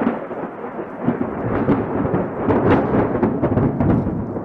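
Thunder rolling with repeated sharp cracks, easing off near the end.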